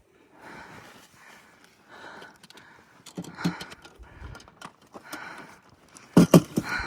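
A person panting hard, a heavy breath about every second, winded from the climb. About six seconds in, a quick cluster of sharp knocks, the loudest sound.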